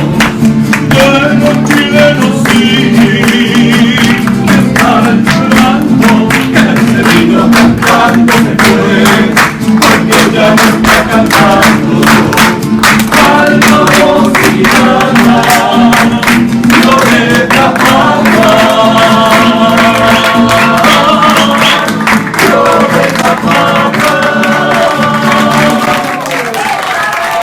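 A song sung in Spanish to rapidly strummed guitar, the voices holding long notes over the strumming; it fades near the end.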